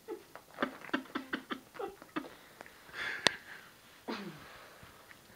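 A person laughing softly in a quick run of short breathy giggles, then a sharp click about three seconds in and one more falling laugh shortly after.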